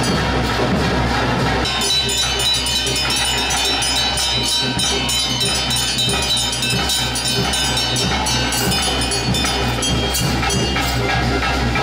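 Music with rhythmic metallic percussion and ringing bell-like tones, which grow denser about two seconds in.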